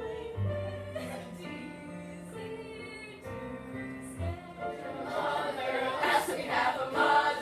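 Music with singing voices holding long notes, growing louder and fuller in the last couple of seconds.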